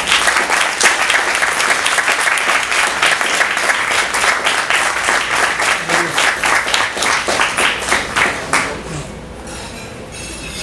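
Audience applauding, starting at once at full strength and dying away about nine seconds in.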